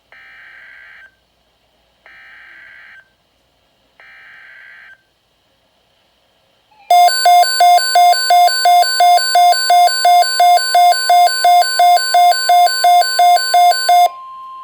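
Emergency Alert System header: three short bursts of screechy digital data tones a second apart, then a loud pulsing alert tone beating about three times a second over a steady high tone. Near the end the pulsing stops and the steady tone carries on alone.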